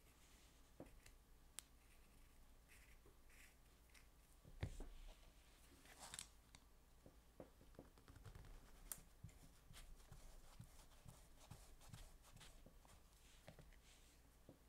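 Faint handling sounds of a Boley watchmaker's lathe three-jaw chuck: small scattered clicks and scrapes as it is turned in the hands and a thin rod is worked in the holes in its back. One louder knock comes about four and a half seconds in.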